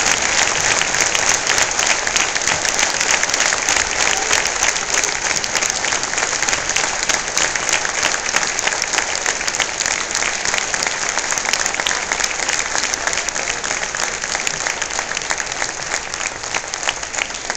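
Large crowd's sustained applause, a dense patter of many hands clapping that slowly grows fainter.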